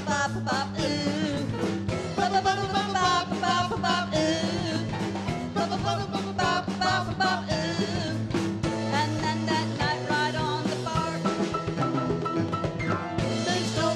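Live band playing a song: drums and percussion keeping a steady beat under keyboard, with a singer's voice over it.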